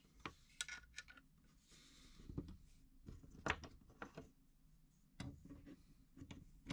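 Faint, irregular clicks and light knocks of objects being handled, with a brief soft rustle about two seconds in.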